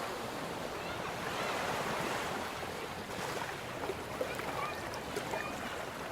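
Sea waves washing on the shore as a steady rushing noise. Faint distant voices and a couple of light knocks sit about four and five seconds in.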